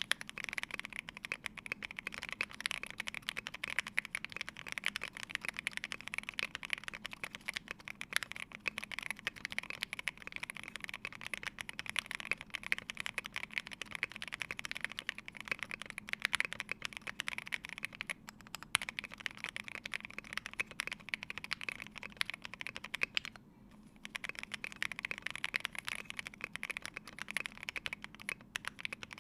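Steady fast typing on a Polaris mechanical keyboard with lubed C3 Banana Split linear switches, a polycarbonate plate and MT3 keycaps: a continuous stream of keystrokes, with a short pause about 23 seconds in.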